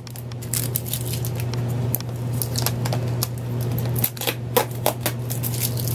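Tape being peeled off a plastic container lid, a run of crackles and sharp clicks as the plastic is worked open.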